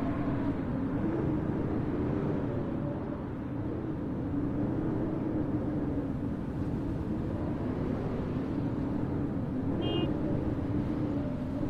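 Blizzard wind howling, a steady rush with a low moaning tone that wavers slowly in pitch, over a low rumble. A brief high chirp about ten seconds in.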